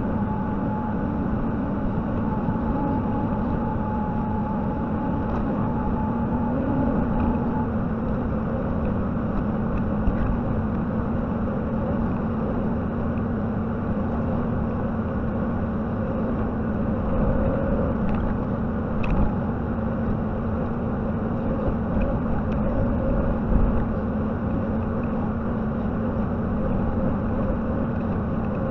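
Mini excavator's diesel engine running steadily with a low hum, likely the JCB 55Z at work. A steadier higher tone runs over it and stops about seven seconds in.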